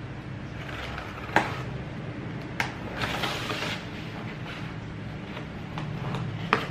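Fingernails picking at and peeling packing tape off a small cardboard box, with cardboard scraping and rustling. Sharp clicks come about a second and a half in, again a second later, and near the end, with a longer scrape in between.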